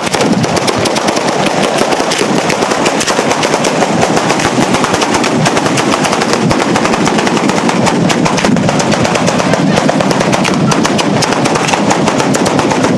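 Batteria bolognese ground fireworks going off: a rapid, unbroken string of firecracker bangs at a steady loudness.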